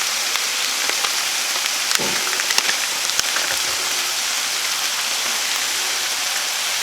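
Frozen fajita chicken, black beans and corn sizzling in hot oil in a skillet: a steady hiss with small crackles, and a light knock about two seconds in.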